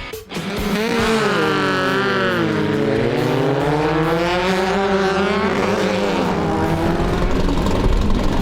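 Off-road race vehicle's engine running hard, its pitch climbing and dipping as the throttle is worked, then holding steady for the last couple of seconds.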